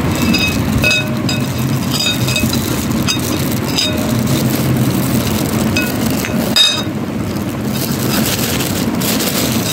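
A metal spoon clinks against a glass bowl of yogurt several times, with the loudest clink about two-thirds of the way in. Under it runs a steady low rumble.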